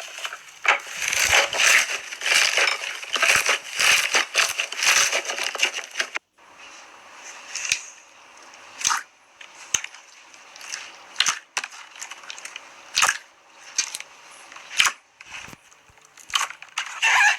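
Slime being squeezed and pressed by hand close to the microphone, making a dense run of crackling clicks. About six seconds in the sound cuts off suddenly, and sparser single pops and clicks follow.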